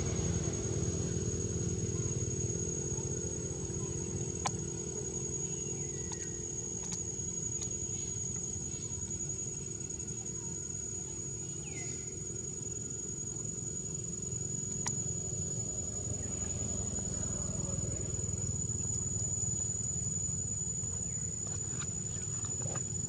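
Outdoor ambience: a steady high-pitched insect drone over a low, steady engine-like hum, with a few faint clicks and a short falling squeak about halfway through.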